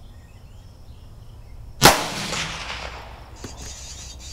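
A single shot from a Mossberg 640 bolt-action .22 rimfire rifle about two seconds in: a sharp crack with an echo that trails off over about a second.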